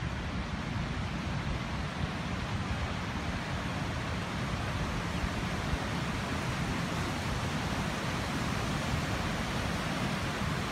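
Mountain creek cascading over rocks: a steady, even rush of water.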